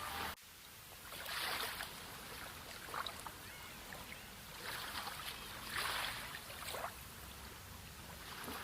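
Sea water lapping and washing in small waves, with several louder splashing surges over a steady hiss. The sound cuts out briefly just after the start.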